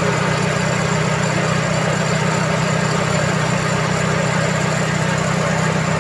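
Toyota 2E four-cylinder engine idling steadily, heard close up from the open engine bay.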